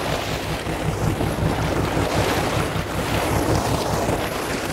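Steady wind buffeting the microphone over the rush of sea water around a boat.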